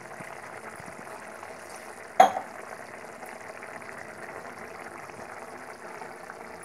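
Spiced masala gravy simmering in a pan, a steady bubbling hiss, with one sharp clink about two seconds in.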